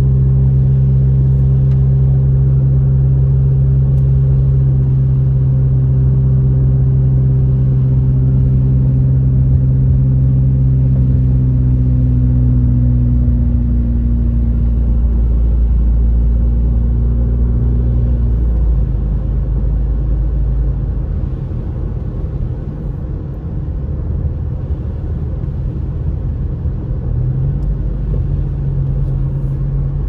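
Inside a moving all-wheel-drive car on snow tires: a steady low drone of engine and tyres on a wet, snow-dusted highway. About eighteen seconds in, the steady hum drops away and leaves a quieter, rougher rumble.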